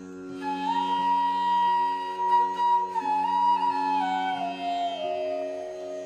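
Background instrumental music: a flute plays one long held note over a steady drone, then steps down the scale in a slow descending phrase.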